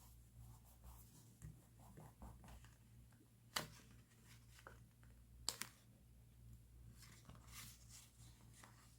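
Faint stationery and paper handling while decorating a diary: soft scratching and rustling, with two sharp clicks about three and a half and five and a half seconds in.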